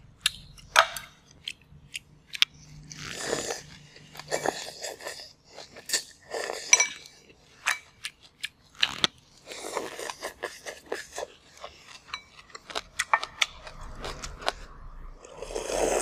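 Close-miked eating: crunchy chewing and biting of noodles, curry chicken and raw vegetables, with many sharp clicks and smacks. Near the end there is a longer noisy sip as the bowl is drunk from.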